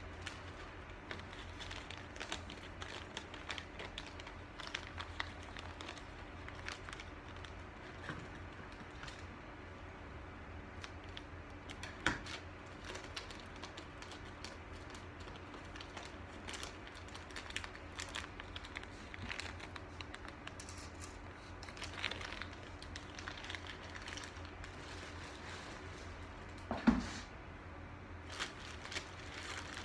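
Plastic packaging crinkling with scattered small clicks and knocks over a low steady hum, with a sharper knock about twelve seconds in and a louder one near the end.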